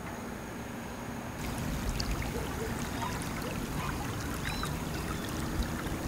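Shallow river running over rocks, a trickling, bubbling rush with many small high splashes. It comes in about a second and a half in, over a steady hiss.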